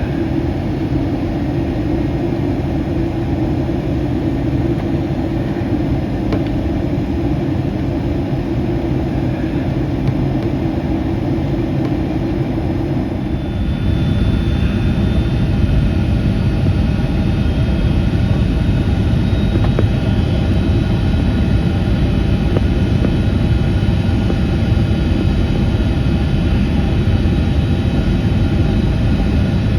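Cabin noise of a Boeing 757-200 heard from inside the passenger cabin: a steady rumble of engines and airflow, which gets louder about 14 seconds in as a few steady whining tones join it.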